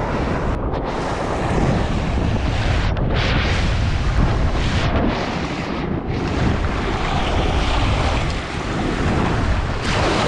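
Sea waves washing and breaking, with wind buffeting the microphone in a constant low rumble.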